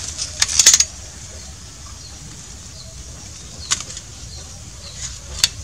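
Handling noise from a scoped rifle: rustling of dry leaves and camouflage cloth with sharp clicks, a quick cluster about half a second in and single clicks near four and five and a half seconds, over a steady high hiss.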